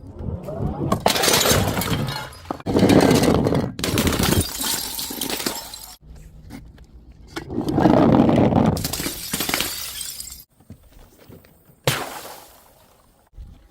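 Glass bottles smashing and shattering, several crashes one after another, each trailing off in the noise of breaking glass.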